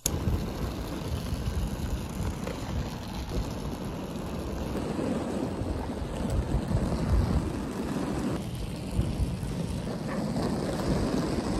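Wind buffeting a phone microphone while inline skating on asphalt, over the steady rumble of skate wheels rolling on the road surface.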